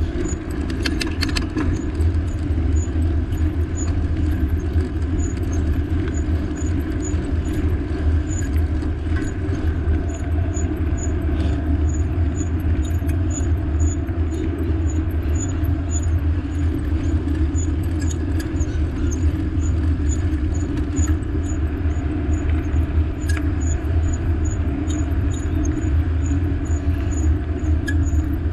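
Steady rumbling wind and road noise of a moving ride, with a faint, regular ticking about three times a second throughout.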